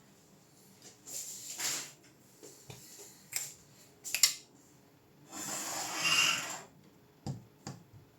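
Handling sounds: two soft hissing swishes, each a second or so long, with a few small clicks and taps between them.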